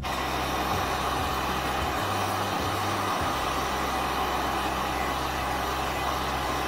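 Handheld hot-air blower running steadily: a loud, even rush of air.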